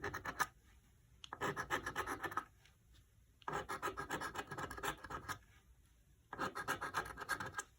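Coating being scratched off a scratch-off lottery ticket in runs of quick scraping strokes. After a brief scrape at the start come three runs of a second or two each, with pauses of about a second between them.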